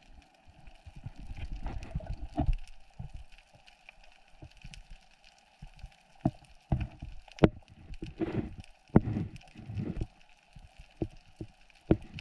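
Underwater sound picked up by a diver's camera: irregular muffled thumps and knocks of water movement, with many scattered sharp clicks over a faint steady hiss.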